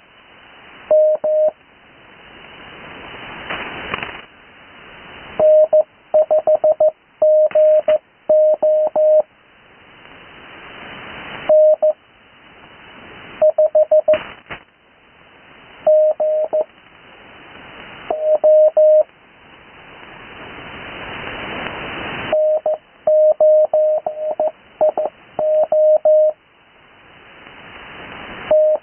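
Morse code (CW) received over an 80 m amateur radio receiver: a single steady tone keyed in dots and dashes, spelling out call signs in several groups. Between the groups the band's hiss swells up gradually until the next group of tones cuts in.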